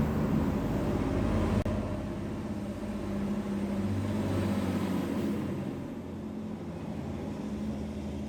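Steady low rumble of a running motor vehicle engine, with a faint hiss.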